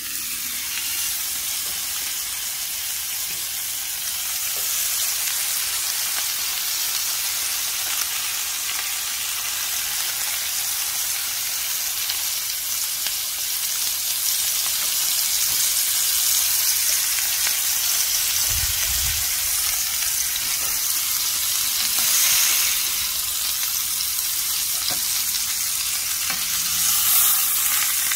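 Ribeye and roast beef sizzling on the grill grate of a Ninja Woodfire outdoor grill: a steady, dense hiss that comes up suddenly as the lid is lifted and swells briefly twice in the second half.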